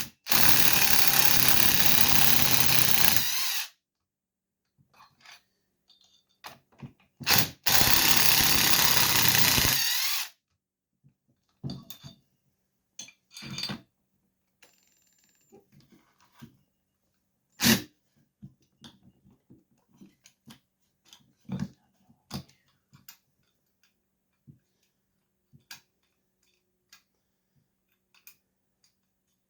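Impact driver running in two bursts of about three seconds each, backing screws out of a Husqvarna 390XP chainsaw during teardown. Light clicks and clinks of parts and tools being handled follow.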